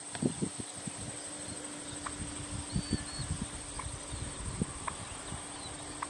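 Steady high-pitched insect chirring in summer grass, with irregular low rumbles and thumps underneath and a few faint short chirps.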